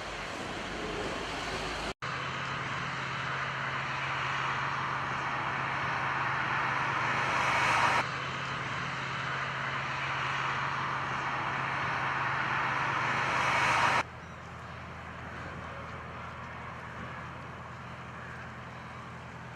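A low, steady engine hum under a steady rushing noise, cut off abruptly several times as the footage changes, and quieter after the last cut.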